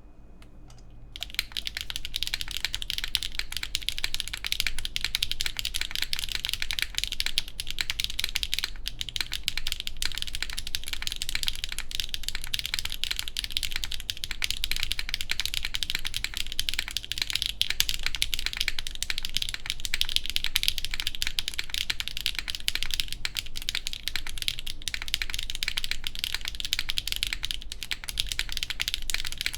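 Fast, continuous typing on a Geonworks F1-8X V2 mechanical keyboard with HMX Macchiato switches, a full aluminum plate and GMK keycaps, with all case screws fitted. The key clacks start about a second in.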